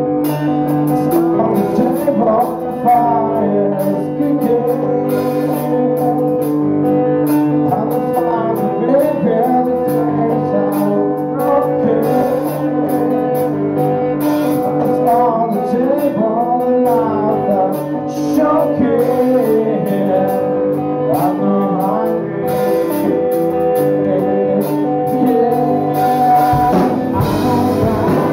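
Live rock band playing a slow song: a male singer's voice over sustained electric guitar chords and drums. The singing comes in about a second in, after a guitar-only passage.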